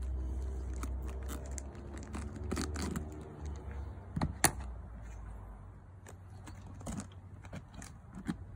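Kitchen knife cutting and prying the core out of a raw head of cabbage on a plastic cutting board: irregular crunching, crackling and scraping of the leaves, with one sharp knock about four seconds in. A low rumble runs under the first half.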